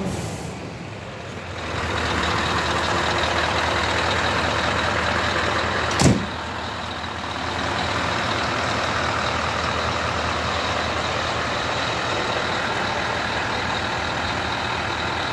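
Scania R 500 tractor unit's V8 diesel engine idling steadily, with a single sharp bang about six seconds in.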